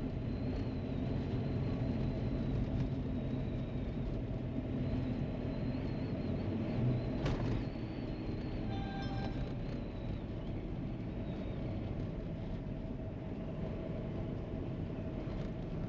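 A 4x4 driving on a dirt road, its engine and tyre noise making a steady low rumble. There is a single sharp click about seven seconds in and a brief beep about nine seconds in.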